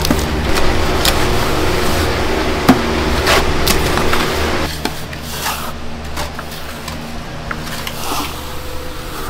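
Wood being worked: scattered knocks and scrapes of timber over a steady low hum, which drops away about four and a half seconds in.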